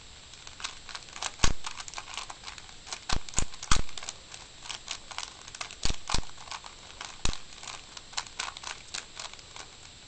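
Rubik's Cube layers being turned by hand: irregular runs of plastic clicks and clacks, with a handful of sharper, louder clacks, during the last moves of a solve.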